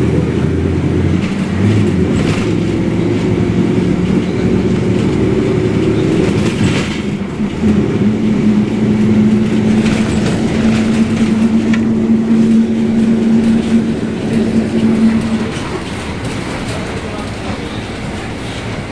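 Mercedes-Benz 1724L bus under way, its differential droning very loud: a steady whine over the engine note that holds from about eight seconds in and stops near fifteen seconds, after which the sound drops to plain running noise.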